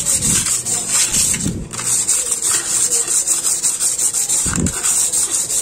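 Sandpaper rubbed by hand over a rusty motorcycle rim in quick, even back-and-forth strokes: sanding off rust to prepare the rim for primer.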